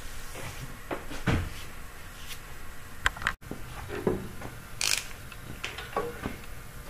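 Scattered knocks and clicks of metal parts being handled, then a socket wrench being set onto a bell housing bolt.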